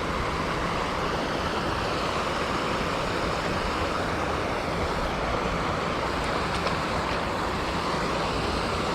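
Steady rush of creek water spilling over a small waterfall, an even hiss without breaks.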